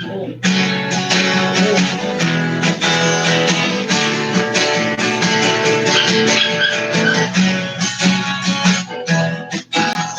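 Acoustic guitar strumming chords in a steady rhythm, the instrumental intro of a worship song, with a brief break in the strumming near the end.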